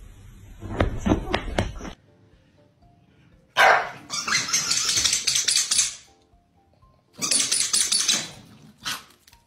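Corgi barking in two loud stretches, the first lasting about two seconds, with a short burst near the end, over soft background music.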